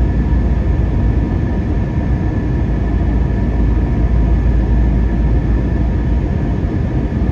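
Steady cabin noise of a jet airliner in cruise-level flight, heard from a window seat beside the wing: a loud, even rumble of turbofan engine and airflow, with a faint steady whine above it.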